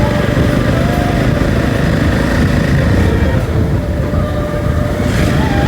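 Heavy wind buffeting on the rider's microphone while riding a Jawa 42 motorcycle, with the engine running underneath at road speed. This is the wind blast the new microphone keeps picking up.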